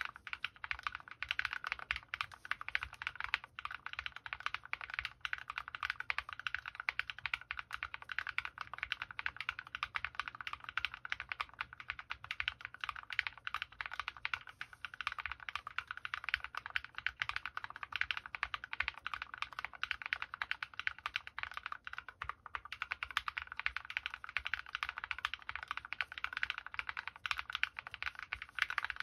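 Fast, continuous typing on a Planck V6 ortholinear mechanical keyboard fitted with Krytox-lubed linear switches (MX Black housings, Kailh Red stems) and tall MT3 keycaps: a steady stream of key clacks.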